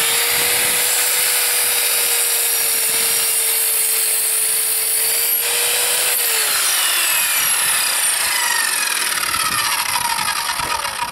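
Evolution R210SMS sliding mitre saw's 1500 W motor running at full speed with a steady whine as its 210 mm blade cuts a slice off a length of timber. About six seconds in the trigger is released and the blade winds down with a falling whine.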